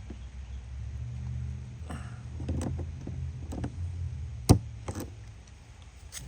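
Hand rivet gun being squeezed to set a blind (pop) rivet: a few light clicks from the tool, then a single sharp crack about four and a half seconds in as the rivet's mandrel snaps off and the rivet sets.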